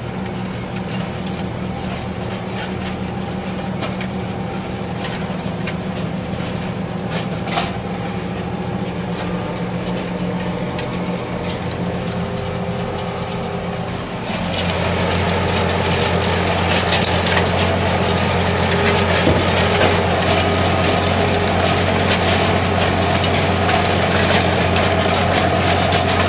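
Valtra T144 tractor's six-cylinder diesel running steadily under load while it pulls a disc-and-tine stubble cultivator, heard from inside the cab. About halfway through it gets louder, with a deeper drone and more rattle and rumble.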